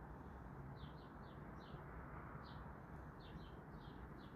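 Faint birds chirping: short, high chirps repeating every half second or so, often two close together, over a low steady background hum.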